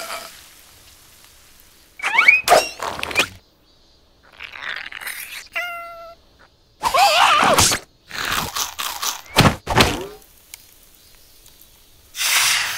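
Animated cartoon sound effects with squeaky, wordless character voices: short gliding yelps and grunts, thuds and knocks, and one brief beep-like tone, in separate bursts with pauses between them.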